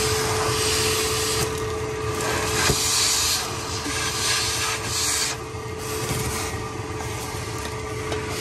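Shop vacuum running steadily, its hose sucking loose rust and debris out from around the spark plugs in an old inline-six cylinder head. A grainy rasp of debris in the hose swells and fades several times over the steady motor hum.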